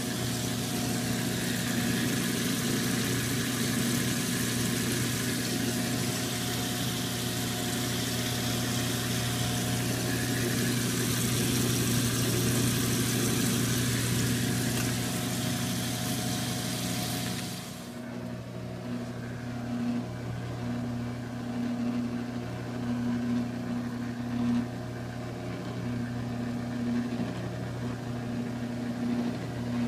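CatGenie self-washing cat box running its wash cycle: a steady motor hum, with a loud rushing hiss of water filling the bowl that cuts off abruptly about two-thirds of the way through. The motor hum carries on after it, with a pulsing whine.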